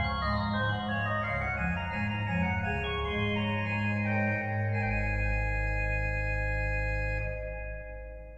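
Organ music: slow sustained chords over a deep bass line, coming to rest on a final held chord that fades away near the end.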